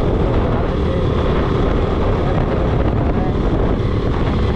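Riding noise from a moving motorcycle: a steady rush of wind on the microphone with the engine running underneath, holding even throughout.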